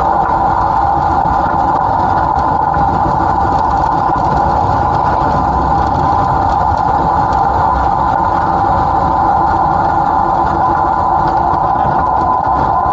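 Class 07 Ruston & Hornsby diesel shunter's engine running steadily, picked up close at the front buffer beam: a constant drone with a strong, steady mid-pitched whine that dips slightly in pitch near the end.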